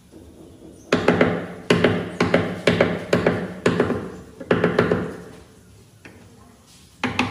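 Ball-peen hammer striking a wood chisel, cutting a recess into the edge of a wooden door. The blows come in quick clusters, each a hard strike followed by lighter taps with a short ring, from about a second in, then pause and start again in a fast run near the end.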